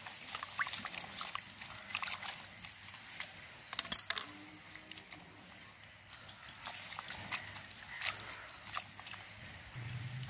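Water sloshing and splashing in a terracotta bowl as hands rinse chopped water hyacinth flowers, in irregular small splashes with a louder burst of splashing about four seconds in.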